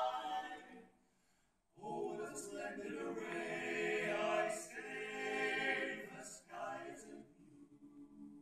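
A four-man male vocal quartet singing a cappella: a held chord fades out, then after about a second of silence the voices come in again with a new phrase that lasts several seconds and trails off near the end.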